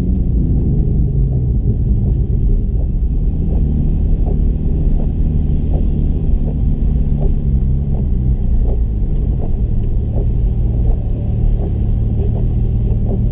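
Car engine running, its speed easing down in the first second and then holding at a steady idle, with a faint tick repeating about every half second.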